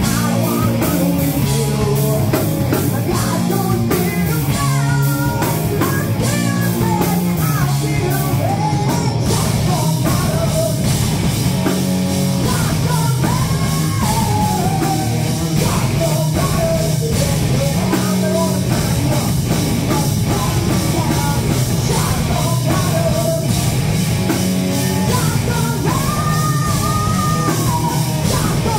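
Live rock band playing loud: electric guitars, bass and a drum kit, with a female lead vocalist singing over them.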